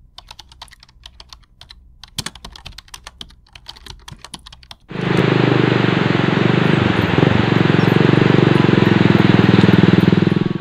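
A run of quick, irregular light clicks like keyboard typing for about five seconds. Then a motorcycle engine starts up loud and close as the bike rides toward the camera, cutting off suddenly at the end.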